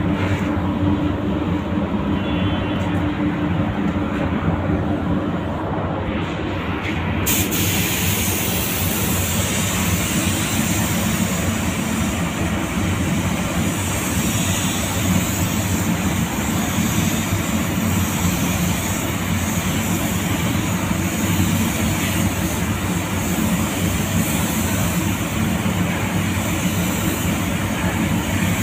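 Steady mechanical hum and rush of a downdraft paint spray booth's ventilation fans. A higher, constant hiss joins in suddenly about seven seconds in.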